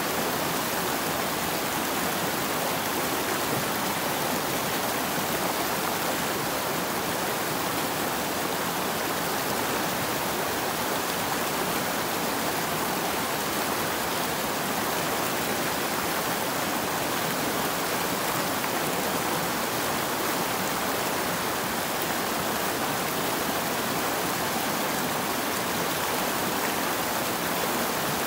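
Rushing water of a Himalayan mountain stream: a steady, unbroken rush.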